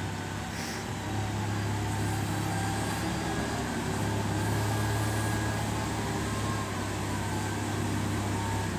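SDLG wheel loader's diesel engine running steadily under load as the machine drives up to a dump truck and raises its bucket of soil. The engine note grows a little louder about a second in.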